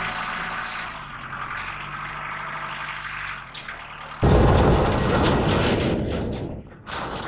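Tractor engine running steadily while a bale handler works round silage bales. About four seconds in it cuts abruptly to a much louder rumble and rattle of a tractor towing an empty flatbed trailer along a road.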